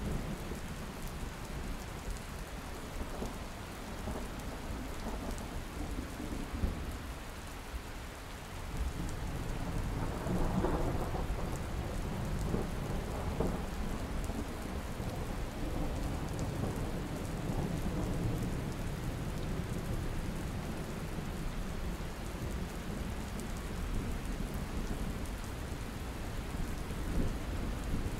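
Thunderstorm: steady rain falling with thunder rumbling low, the rumble swelling about ten seconds in.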